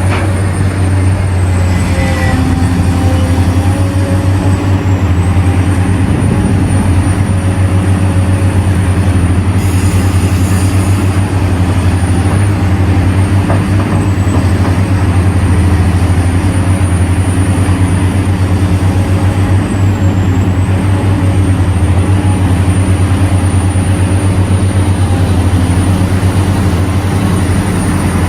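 Heavy diesel machinery running steadily: the deep engine drone of a large Caterpillar mining excavator working, with a thin high whine that dips in pitch now and then.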